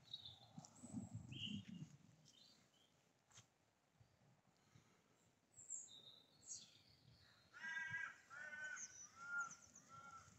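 A crow cawing four times in quick succession, starting about two-thirds of the way in. Faint small-bird chirps come earlier.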